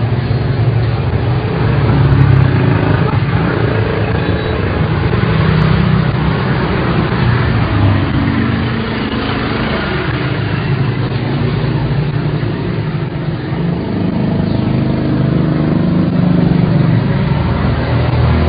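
Steady road traffic noise with motor vehicle engines running, their hum shifting in pitch as vehicles pass.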